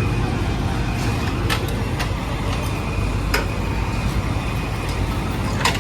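Large vehicle engine idling steadily, a low rumble, with a few sharp clicks or knocks over it.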